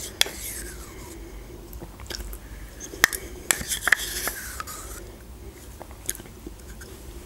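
Metal spoon scraping the inside of a small plastic yogurt cup, with a few sharp clicks of the spoon against the cup, and soft eating sounds as a spoonful of yogurt is taken.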